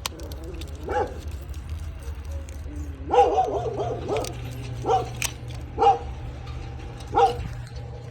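A dog barking: one bark, a short run of barks and yelps about three seconds in, then single barks roughly once a second. A steady low hum runs underneath.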